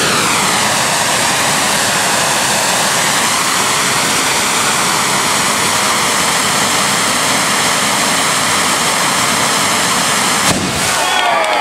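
Hand-held tezutsu tube firework spraying out sparks with a loud, steady rushing hiss, its pitch sliding down in the first second. About ten and a half seconds in it ends with a sharp bang, the hane burst that blows out the bottom of the tube, and voices follow.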